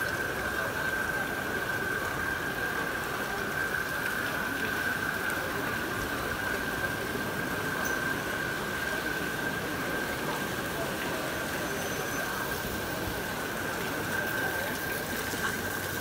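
Fountain water splashing and running steadily into its basin, with a steady high-pitched whine held throughout.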